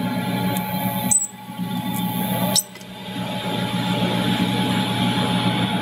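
TIG welding arc buzzing steadily while a chromoly roll-cage tube is tack-welded. The arc cuts off about a second in and strikes again about a second and a half later.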